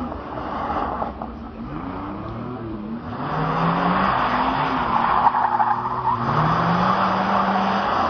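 Muscle car engines revving hard as the cars drift and spin, their pitch rising and falling again and again. From about three seconds in, a louder hiss of spinning, sliding tyres joins them.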